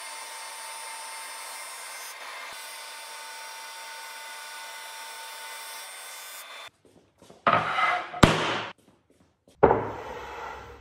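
A 20-inch King Industrial planer runs steadily as a board feeds out. About seven seconds in the machine sound cuts off, and two loud scrapes of a wooden board being slid across another board follow. The second scrape comes near the end.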